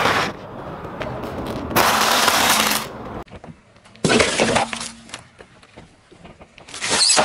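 A car tyre rolling over and crushing objects on asphalt, a cardboard gift box among them: a series of short, loud crunching and cracking bursts about two, four and seven seconds in, the first lasting about a second.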